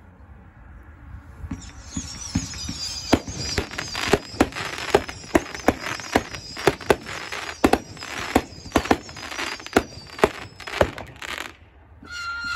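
A 500-gram, 50-shot consumer firework cake firing: a rapid string of sharp bangs, about two or three a second, over a high whistling. It stops suddenly near the end, and just before the end a new high whistle starts.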